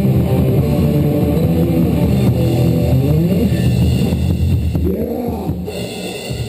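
A thrash/crust metal trio playing live: distorted electric guitar, bass guitar and drum kit, with wavering, sliding pitches over a dense low rumble. The sound starts fading out about two-thirds of the way through as the song winds down.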